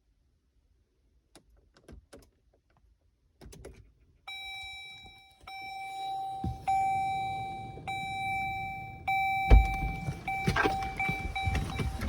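A few key clicks and a knock. Then a car's electronic warning tone sounds steadily with short breaks, over a low rumble, with a loud thump partway through.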